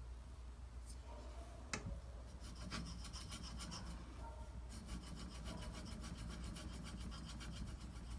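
Knife blade drawn back and forth in repeated strokes across a wet 4000-grit water stone, a faint rhythmic scraping that starts about two seconds in, over a low steady hum. A single sharp click comes just before the strokes begin.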